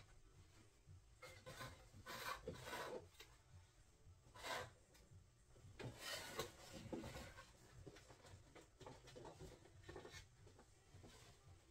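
Faint rubbing and scraping in a few short spells, the strongest about two seconds in, again around four and a half seconds and six seconds, and weaker near the end.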